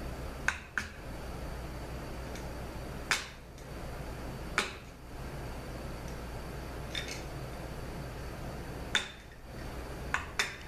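A small hammer tapping a screwdriver against the steel locking bracket on the large gear nut of a 41TE transaxle: about eight sharp metallic taps, spaced irregularly, with a quick pair near the end.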